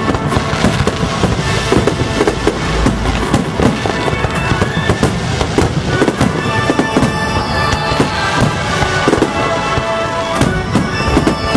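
Aerial fireworks display: shells bursting in rapid, overlapping bangs, several a second, with music playing underneath.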